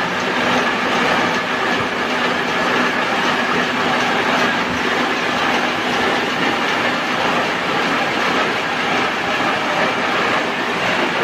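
Stahl KC66 paper folding machine running: a steady, dense mechanical clatter with a faint constant whine underneath.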